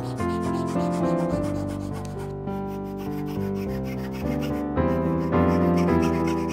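Hand fret saw cutting through a thin wooden cut-out, a steady rasp of back-and-forth blade strokes, under background instrumental music.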